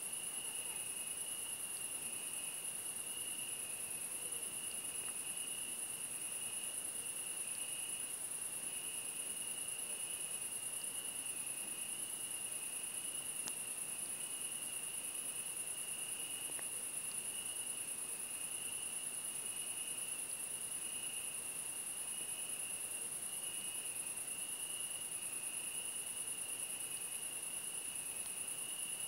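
Crickets chirping steadily in the night: a high, continuous trill over a lower, gently pulsing one, without a break.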